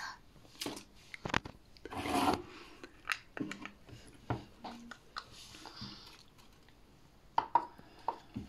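Pink slime being dug into and pulled out of a plastic tub by hand. Scattered short, sharp clicks and pops come through, along with soft rubbing of fingers against the slime and the tub.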